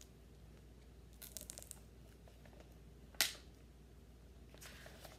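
Pages of a hardcover picture book being opened and turned: a few light clicks and rustles, a sharp paper swish about three seconds in, then a softer rustle near the end.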